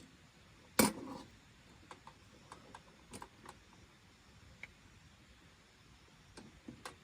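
One sharp knock about a second in, followed by scattered light clicks and ticks at uneven intervals.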